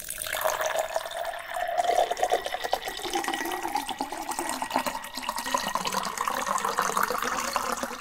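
Thick acrylic paint pouring and dripping off the edge of a tilted canvas onto the plastic-covered table: a continuous wet pouring and splattering sound.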